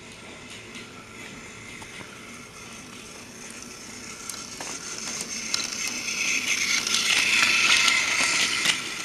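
Motorised toy Thomas the Tank Engine running on plastic TOMY track: its small motor and gears whir, with clicks from the wheels on the track. The sound grows steadily louder as the engine approaches, peaks about eight seconds in, then drops off sharply near the end.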